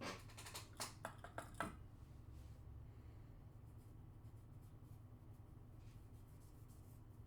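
A quick run of light clicks and taps of handling in the first two seconds, then near silence with a faint low hum.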